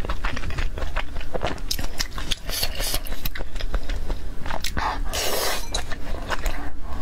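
Wet chewing and lip-smacking clicks from eating spicy salmon slices. About five seconds in there is a longer slurp as a strip of salmon is sucked into the mouth.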